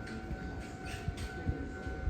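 Japanese level-crossing warning alarm sounding with a steady ringing tone, over the low rumble of a train with a few low thumps from its wheels.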